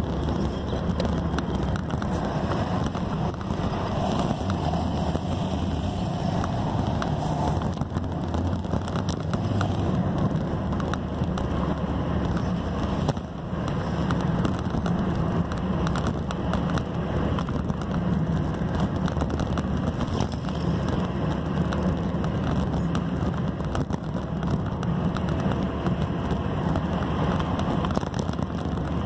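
Car on the move, heard from inside the cabin: steady engine and tyre road noise.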